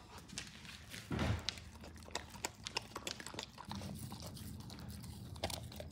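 A Husky–Malamute mix dog eating raw food from a stainless-steel bowl: irregular wet chewing, smacking and clicking, with a low thud a little after a second in.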